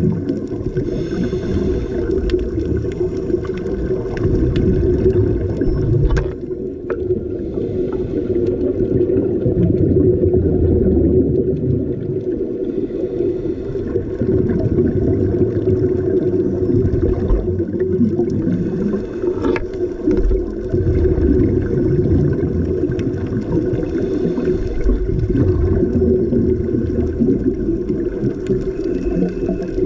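Underwater sound of scuba divers breathing through their regulators: a steady muffled rumble with gurgling swells of exhaled bubbles every several seconds.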